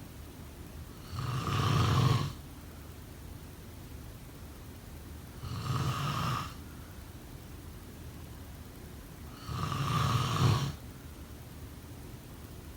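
Snoring: three snores about four seconds apart, each lasting about a second, with a low steady hiss between them.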